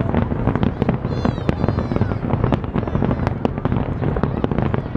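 Fireworks display: a dense, continuous run of sharp bangs and crackles over a low rumble.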